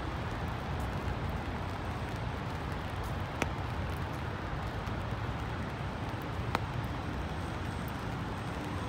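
Steady low hum of city traffic under an even hiss of rain on wet pavement, with two sharp taps about three seconds apart.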